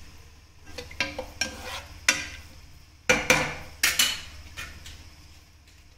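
A spoon clinking and scraping against a metal cooking pot as chopped onions are tipped in and stirred, with several sharp knocks in the first four seconds.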